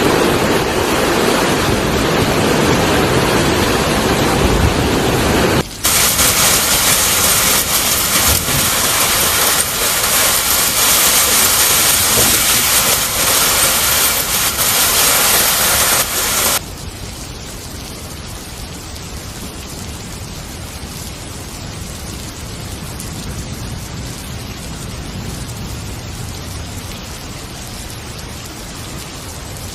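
Heavy storm rain with wind, a steady loud rushing. About six seconds in it switches abruptly to a harder, hissier downpour, and at about sixteen seconds it drops abruptly to softer, steady rain.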